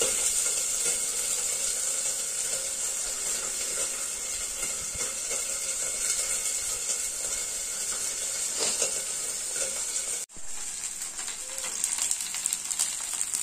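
Pabda fish frying in hot oil, a steady sizzle with fine crackling. The sizzle breaks off for an instant about ten seconds in, then carries on.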